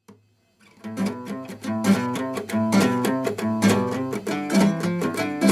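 Acoustic guitar playing a melody in repeated plucked and strummed notes, starting about a second in after a short silence.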